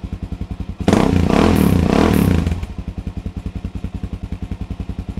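Suzuki DR-Z400's single-cylinder four-stroke engine breathing through a Rocket Exhaust aftermarket slip-on muffler, idling with even exhaust pulses. It is revved briefly about a second in, then drops back to idle.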